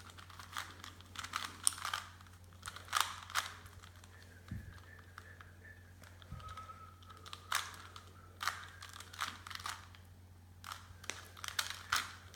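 Rubik's Cube being turned quickly by hand: an irregular run of short plastic clicks and clacks as the layers snap round.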